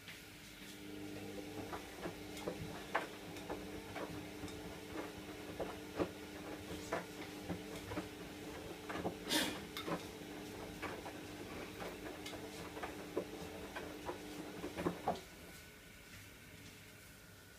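Kitchen tap running with a steady low hum while plastic fan blades are scrubbed under it, with many light knocks and clicks against the sink and one short, louder burst of noise a little past halfway. The tap shuts off a couple of seconds before the end.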